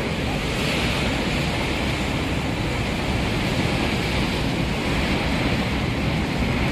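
Heavy ocean surf breaking and churning against rocks at the foot of a sea cliff, a steady loud rush of water with wind on the microphone.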